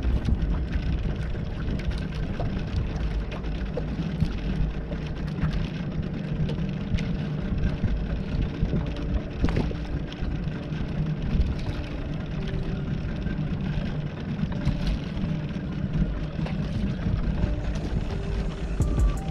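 Fishing boat's engine running steadily, a low rumble with a hiss of water and wind over it.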